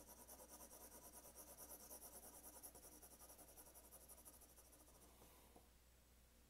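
4B graphite pencil shading on 50 lb drawing paper: faint, rapid back-and-forth scratching strokes in an even rhythm, which die away about five seconds in.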